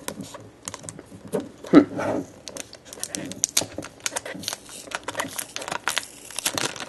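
Thin paper wrapping being peeled and torn off a small plastic iPod box: irregular crinkling and crackling that grows denser in the second half.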